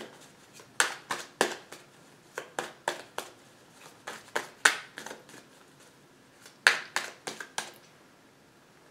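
A deck of tarot cards being shuffled by hand, overhand: quick sharp card snaps and slaps in several short flurries with brief pauses between.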